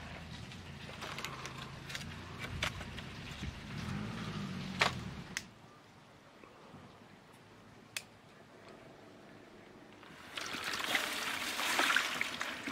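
Chopped fresh tomatoes tumbling from a steel bowl into a metal cooking pot, a loud wet splattering rush in the last couple of seconds. Before it, a low steady hum with a few sharp knocks and clicks.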